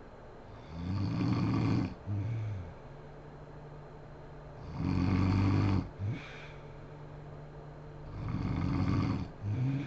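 A sleeping woman snoring: three loud snores, each about a second long and a few seconds apart, each followed by a shorter second sound.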